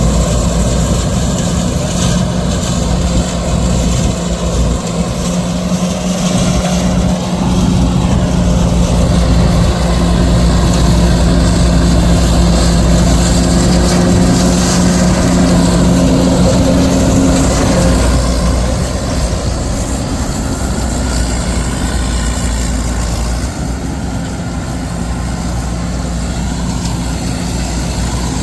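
Heavy diesel engine of farm machinery running steadily, its note shifting about two-thirds of the way through.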